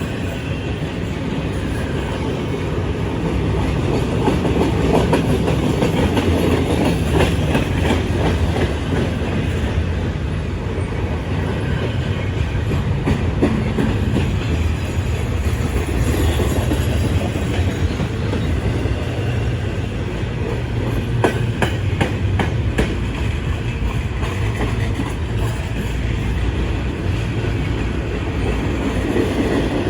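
Train cars rolling by: a steady rumble of steel wheels on the rails, with clusters of clicks as wheels cross rail joints, most around two thirds of the way through.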